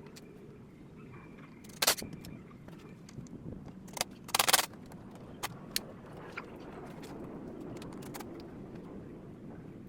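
Hand tools and parts being handled: two loud brief rattles, about two seconds in and about four and a half seconds in, and a few sharp clicks, over a steady low hum.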